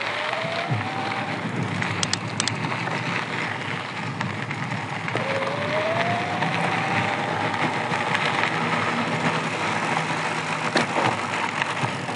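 Electric mountain bike riding on a gravel road: a steady crunch and rush of tyres on loose gravel, with the electric motor's whine rising in pitch as it speeds up at the start and again about five seconds in.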